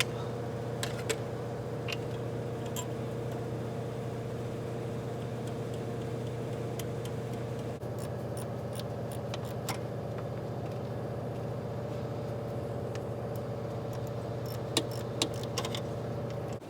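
Steady mechanical hum with a constant low drone, under scattered light metallic clicks and clinks of parts and tools being handled.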